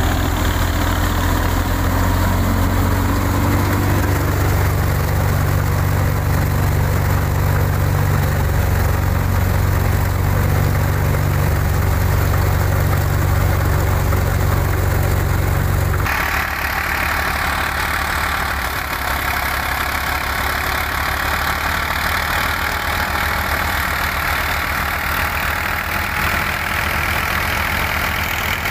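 Massey Ferguson 240 tractor's three-cylinder diesel running steadily under load, belt-driving a wheat thresher that adds a continuous rushing rattle. About halfway the deep engine hum falls away and the higher rushing of the thresher takes over.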